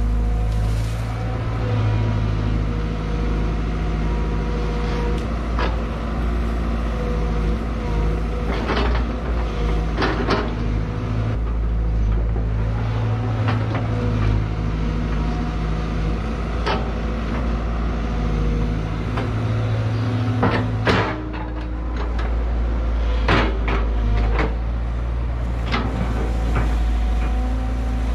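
Caterpillar 312B excavator's diesel engine running steadily, its pitch swelling and easing as the machine works under load. Repeated sharp cracks and knocks, thickest in the second half, as the bucket tears out stumps and brush.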